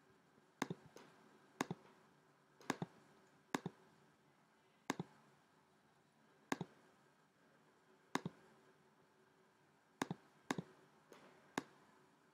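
Computer mouse clicking: about a dozen sharp, faint clicks at irregular intervals, some in quick pairs, as shapes are selected, recoloured and dragged in a drawing program.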